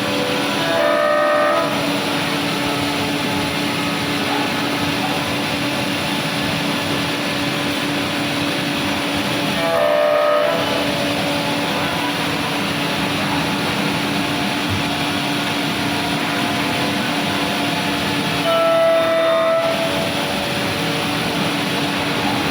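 CNC woodworking machining centre running: a loud, steady machine noise with a constant hum. A short, higher-pitched whine rises out of it three times, about every nine seconds.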